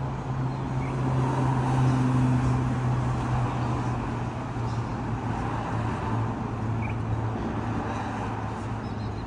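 A car engine running with a steady low hum. It swells about two seconds in, then eases off slowly.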